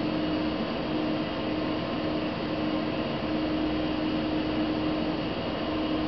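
Steady machine hum with hiss, with a low tone that drops out for about a second midway.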